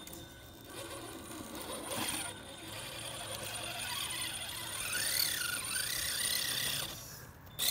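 The brushless electric motor and geared drivetrain of a GSpeed-chassis RC rock crawler whining as it crawls over rocks. The pitch rises and falls with the throttle, and it is loudest in the second half.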